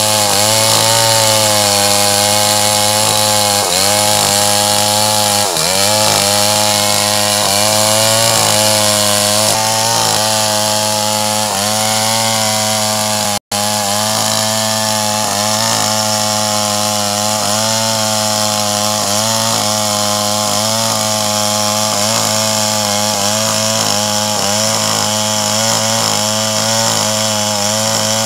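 Stihl 381 two-stroke chainsaw running at full throttle while ripping lengthwise through a red meranti log, with brief dips in revs as the chain bites. The sound cuts out for an instant about halfway through.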